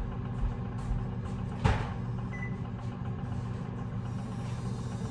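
A steady low mechanical hum, with a single sharp click about a second and a half in.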